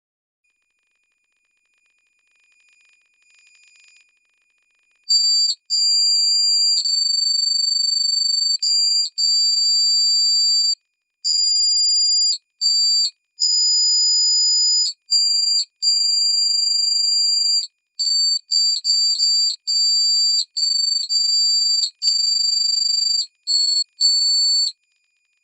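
Electromagnetic interference picked up underwater: high-pitched electronic tones switching on and off in irregular blocks, from a fraction of a second to a few seconds long, starting about five seconds in. A faint steady lower tone runs beneath them.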